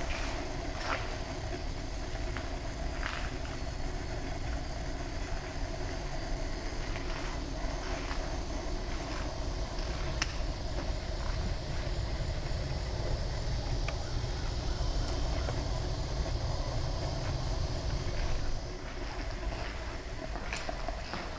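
Steady low rumble and hiss of wind and handling noise on a hand-carried action camera, with a few faint clicks scattered through it.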